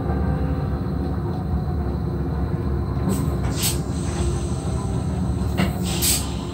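NS SGMm Sprinter electric train running along the track, heard from the driver's cab: a steady low rumble, with a few short high-pitched bursts about three seconds in and again near the end.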